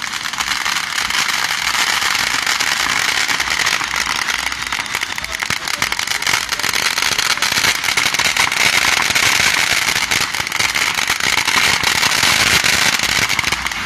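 Fireworks and firecrackers going off in a dense, unbroken crackle of many rapid overlapping pops.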